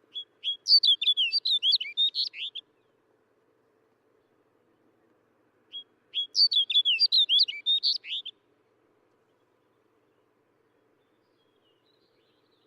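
Snow bunting singing: two short phrases of rapid, quick-changing high notes, each lasting about two and a half seconds, the second starting about six seconds in.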